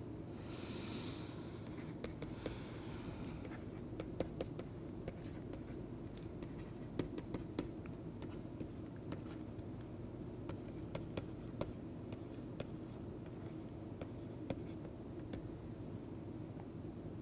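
A stylus tapping and scratching on a tablet screen while handwriting an equation: a scatter of small sharp clicks, with a couple of brief hissy strokes in the first few seconds, over a steady low hum.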